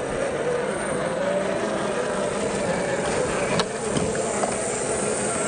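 Electric motors and gear drives of 1/10-scale RC crawler trucks whining as they creep over a root-strewn trail, the pitch wavering up and down with the throttle. There is a single sharp click about three and a half seconds in.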